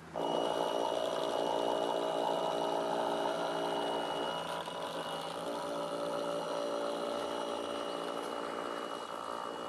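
Radio-controlled model Schnellboot's motor running steadily, a hum with a thin high whine over it in the first half. It fades somewhat near the end as the boat moves away.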